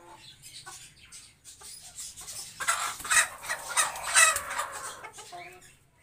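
Backyard hens and roosters clucking, with a louder, harsh, scratchy stretch of noise from the flock from about two and a half to five seconds in.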